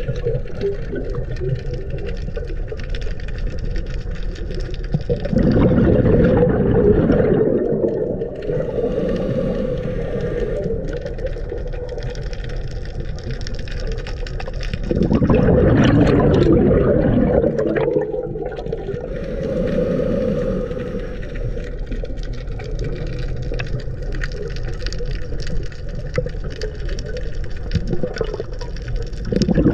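A scuba diver's regulator breathing heard underwater through a camera housing: a muffled steady rush, broken by long bubbling bursts of exhaled air about ten seconds apart, twice in full and a third starting near the end.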